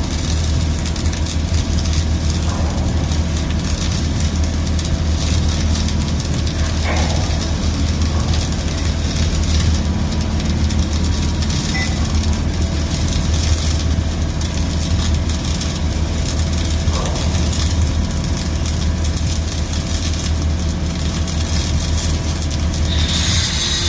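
Arc welding: a steady crackling hiss over a constant low hum from the welding machine.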